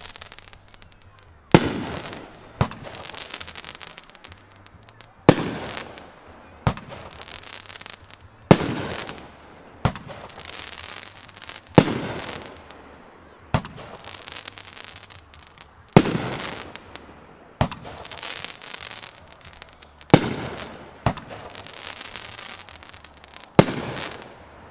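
A consumer multi-shot firework cake from a Flashing Fireworks 'Dirty Dozen' assortment, firing one shot about every three and a half seconds, seven in all. Each shot is a sharp bang followed by a lighter pop a second or so later, then a fading fizzing hiss.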